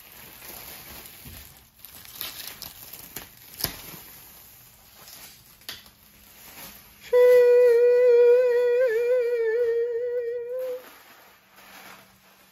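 Faint crinkling and handling noises for the first several seconds. A little past halfway, a person hums one steady, fairly high note for about three and a half seconds, with a slight waver in the middle.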